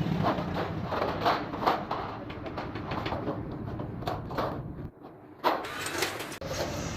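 Workshop noise in a kettle-making shop: irregular knocks and taps over a steady machine hum, dipping briefly about five seconds in.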